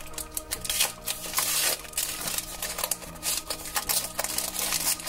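Plastic-and-foil blister pack crackling and crinkling in quick, uneven rustles as it is torn open by hand, over soft background music.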